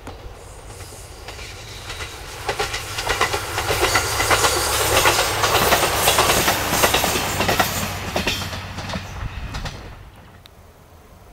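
JR Kyushu Kiha 200-series diesel railcar passing: its wheels click over the rail joints and its engine hums low. The sound builds over the first few seconds, is loudest in the middle as the car goes by, and fades near the end.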